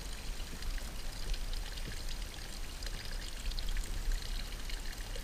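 Steady trickling and splashing of water close by, with many small drips and ticks.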